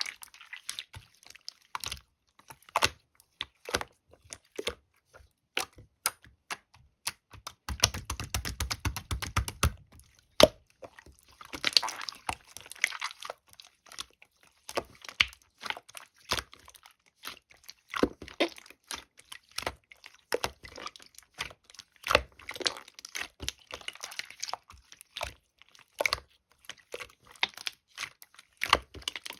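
Clear slime being squished and pressed by hand, making a steady stream of sticky clicks and small pops, with a fast rattle of pops about eight seconds in.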